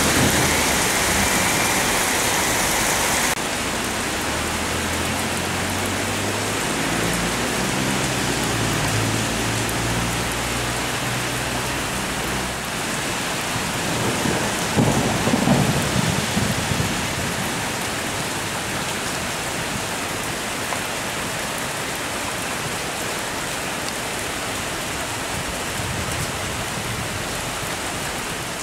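Steady rain hissing through a thunderstorm, with a long low thunder rumble in the first half and a louder peal of thunder about fifteen seconds in. The rain sound changes abruptly about three seconds in.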